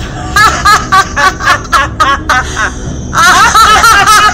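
Two women laughing loudly in quick, high-pitched ha-ha bursts, the laughter growing louder and more continuous about three seconds in.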